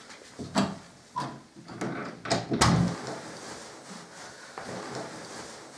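An interior door being handled and shut: a quick run of knocks and clicks over the first three seconds, the loudest about two and a half seconds in, followed by quieter rustling.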